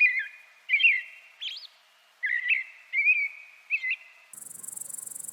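House sparrows chirping: about seven short chirps over the first four seconds. About four seconds in, a steady high-pitched buzz with fast pulsing takes over.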